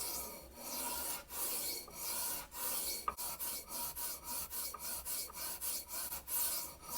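A steel knife blade stroked back and forth across a dry sharpening stone, a rasping scrape with each pass. The strokes are long at first, then shorter and quicker from about halfway through.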